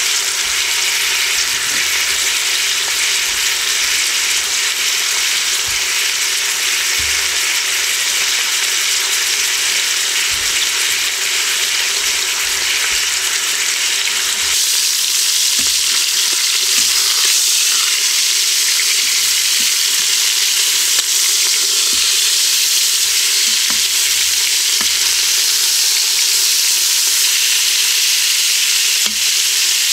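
Chicken thighs browning in hot oil in an Instant Pot's stainless steel inner pot on the sauté setting: a steady frying sizzle that grows a little louder about halfway through.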